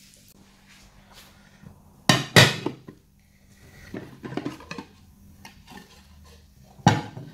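Ceramic dinner plates clattering against each other and the wooden tabletop as one plate is laid upside down over another and the pair is turned over. There are two sharp knocks about two seconds in, lighter clinks around four seconds, and another sharp knock near the end.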